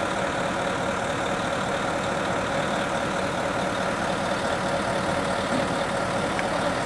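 Fire truck engine idling steadily.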